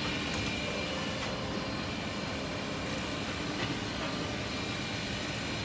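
Steady machinery din of a wood-processing factory: motors running continuously with a faint steady high whine, and a couple of faint clicks.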